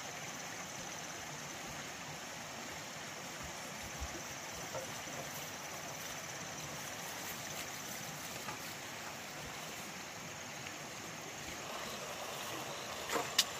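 Steady rushing noise like flowing water, with a thin, high, steady whine above it and two sharp clicks near the end.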